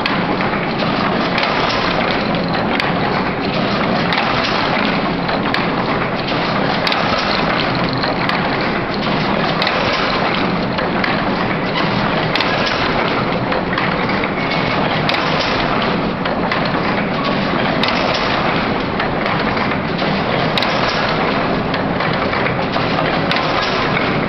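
Double-knot fishing net making machine running: a dense, continuous mechanical clatter with fine ticking throughout. A heavier beat recurs about every two and a half seconds, in step with the machine's slow 23 rpm knotting cycle.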